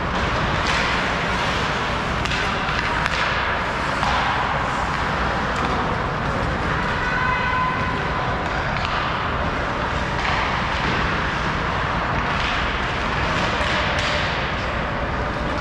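Ice hockey play on the rink: skate blades scraping the ice and sticks and puck knocking, with repeated short scrapes and thuds over a steady rink noise.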